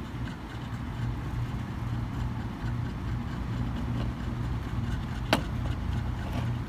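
Steady low mechanical hum like an engine idling, with one sharp click about five seconds in.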